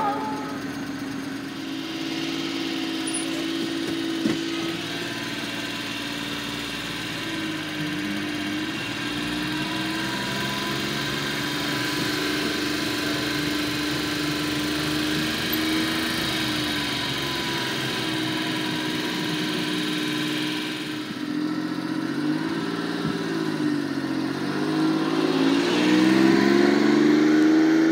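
1994 Suzuki Carry kei dump truck's small three-cylinder engine running steadily. In the last several seconds its pitch rises and falls with the throttle, and it gets louder as the truck drives close past.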